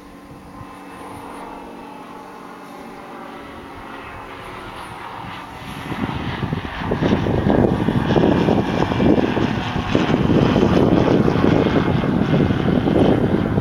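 Engine drone, a stack of steady tones that slowly falls in pitch and grows louder. From about six seconds in, a much louder rough rushing noise takes over.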